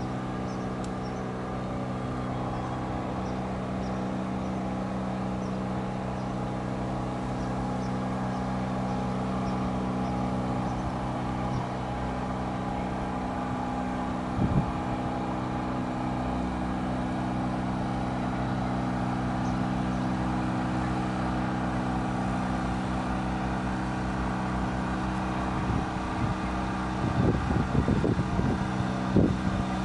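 A steady engine drone at an unchanging pitch, with wind buffeting the microphone in the last few seconds.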